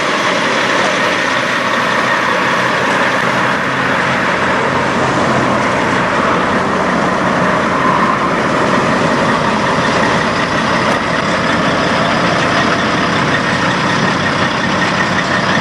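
Peterbilt semi truck's diesel engine running steadily at low speed, a loud continuous rumble with no revving.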